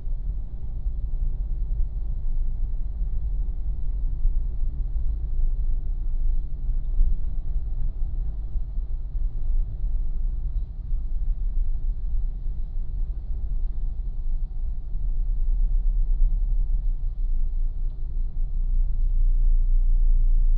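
Low, steady rumble of road vehicle noise, growing a little louder near the end.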